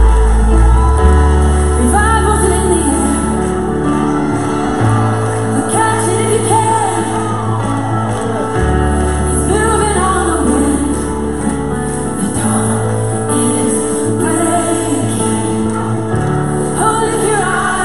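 Worship song playing: a sung melody over long held bass notes that change every few seconds.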